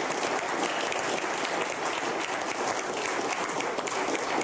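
Audience applauding steadily, many hands clapping at once, at the close of a talk.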